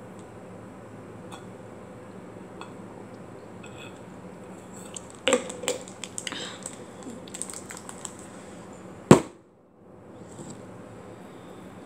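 Handling noise close to the microphone: a cluster of crackles and clicks from a plastic drink bottle being handled, starting about five seconds in, then a single sharp knock about nine seconds in. A steady low hum runs underneath.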